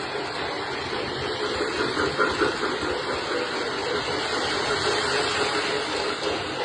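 K-Line O-scale model of Southern Pacific Daylight 4449 running on track: a steady mechanical rumble with hiss from the motor, wheels and rails.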